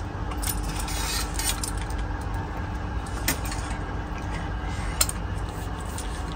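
Galvanised steel speargun shaft being handled and fitted into a Salvimar Wild Pro 50 speargun: light metallic clicks, rattles and scrapes, with a sharper click about three seconds in and another about five seconds in, over a steady low hum.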